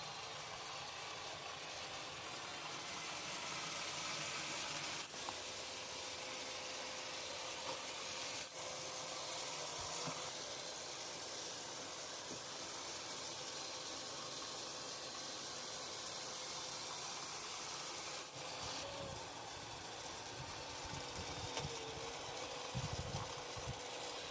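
Veniibot N1 Max robot vacuum running on standard suction power: a steady whirring hiss with a faint motor tone that briefly dips in pitch a few times.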